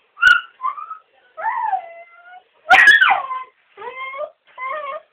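Dogs whining and yelping, a string of short high cries that bend up and down in pitch, with one louder, harsher cry a little past halfway and rising whines near the end.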